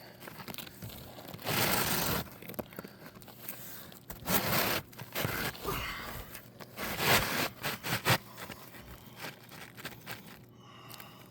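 A new 3-tab asphalt shingle being slid into place under the course above, its gritty surface scraping against the neighbouring shingles in several separate pushes, with a couple of light knocks near the end.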